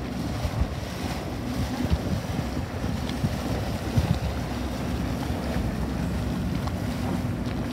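Wind buffeting the microphone over choppy water, with the faint steady hum of a center-console boat's outboard motor as it cruises past.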